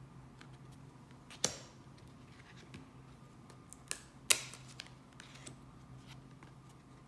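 Tarot cards handled and flipped by hand: a scattering of sharp card snaps and clicks, the two loudest about a second and a half in and just past four seconds, with fainter ticks between.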